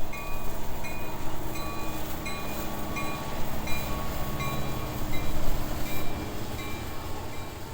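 Freight train rolling past, a steady low rumble of wheels on rail, with a short high tone repeating about every two-thirds of a second. It fades near the end.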